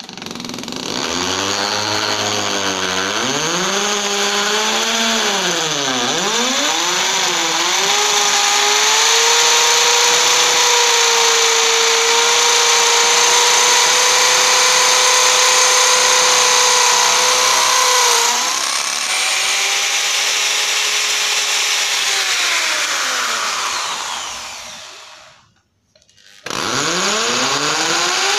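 Electric hand drill boring an anchor hole into a masonry wall. The motor whine wavers up and down in pitch over the first several seconds, then holds steady, slows and stops about 25 seconds in, and spins up again about a second later.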